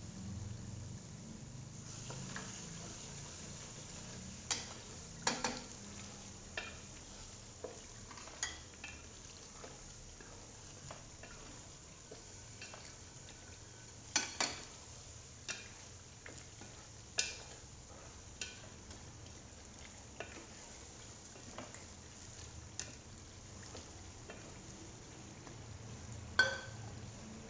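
Chili sambal sizzling in oil in a stainless steel pot as it is stirred, the spoon knocking and scraping against the pot every second or two, with one sharper knock near the end.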